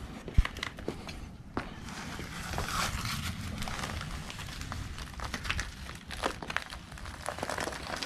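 Newspaper rustling and crinkling as a heavy upturned plastic pier cap mould is lowered onto it and handled, with scattered clicks and taps from the plastic. A single low thump about half a second in.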